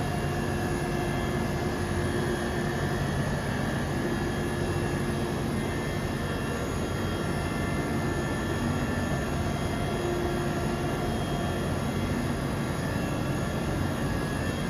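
Micron VCP 710 CNC machining centre running: a steady mechanical whir with a few held whining tones that come and go.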